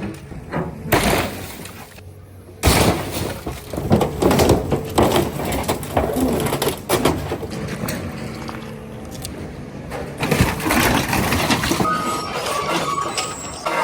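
Scrap car being crushed by an excavator: dense, irregular crunching of metal and breaking glass, starting about three seconds in, over the machine's running engine.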